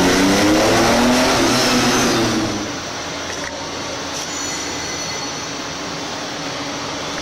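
Car engine accelerating, its pitch rising, then falling away after about two and a half seconds to a steady, even hum.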